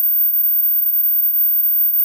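Steady electronic tone at the upper edge of hearing, a high-frequency anti-barking dog whistle sound, holding one unchanging pitch.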